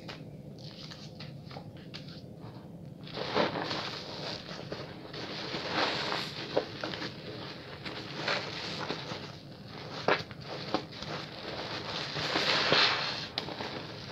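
Bar soap being lathered at a fairly fast pace: a rubbing, lathery noise with many sharp little clicks. It is sparse at first and becomes denser and louder from about three seconds in.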